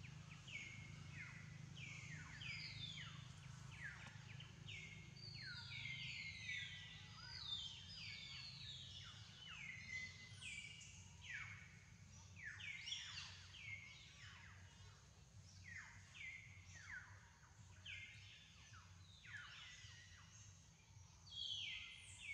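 Faint chorus of birds calling: many short calls, each falling in pitch, overlapping one after another throughout, over a low steady hum.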